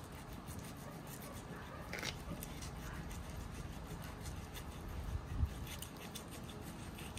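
Knife scraping and cutting against a redfish's thick, deep-set scales, a faint rasping, with a dull thump about five seconds in.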